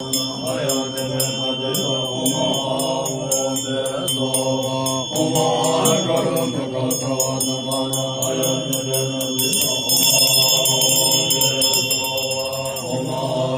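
Tibetan Buddhist monks chanting together in low, sustained voices, with a hand bell ringing in quick, regular strokes over the chant.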